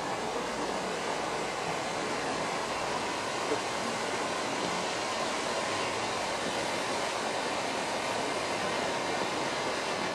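Piromax No Limit Fountain, a ground firework fountain, burning with a steady hiss as it sprays sparks, with one small pop about three and a half seconds in.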